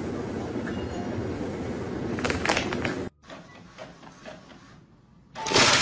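A steady noisy background for about three seconds, then after a sudden cut a printer working: a few light ticks, then a short loud whirr of its mechanism near the end.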